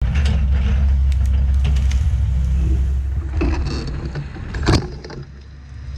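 Heavy diesel machinery running with a deep, steady rumble that eases off about three seconds in. A single sharp, loud crack comes near the end.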